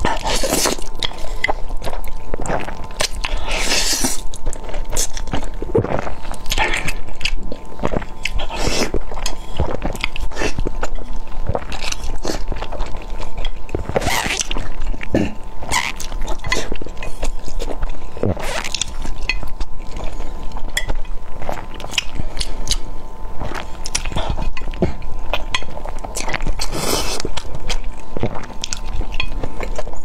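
Close-miked eating: a person slurping sticky spicy instant noodles and biting and chewing boiled eggs, an uneven run of slurps, bites and chews.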